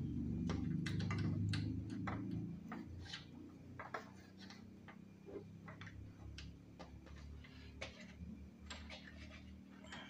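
Irregular small clicks and taps of hands working cables and fittings at a solar panel's plastic junction box, with a low rumble during the first couple of seconds.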